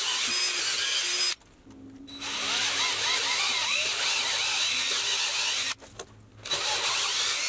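DeWalt cordless drill with an extra-long 3/8-inch bit boring a bolt hole through a timber beam, run in three spells with two short pauses, about a second and a half in and about six seconds in.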